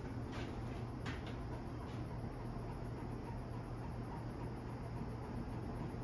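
Airmaster industrial ceiling fan running fast, just below its high setting: a steady motor hum with air noise from the blades. A couple of faint clicks come in the first second or so.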